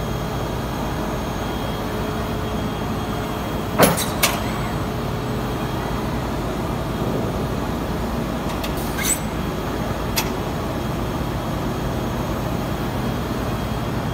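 Steady industrial machinery noise with a low hum from a robotic vacuum area-gripper line handling wooden boards, broken by a pair of sharp knocks about four seconds in and two more around nine and ten seconds as boards are picked up and set down.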